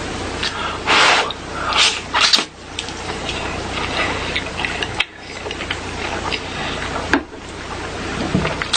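Close-miked eating: bites and chewing, with a few short loud crunchy bursts near the start and many small wet clicks.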